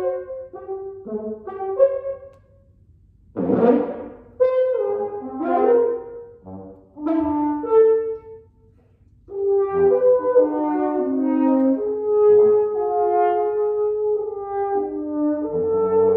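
French horn and saxophones playing in short, separate phrases broken by two brief pauses, with one breathy, rasping note about three and a half seconds in. From about nine seconds on, several held notes overlap.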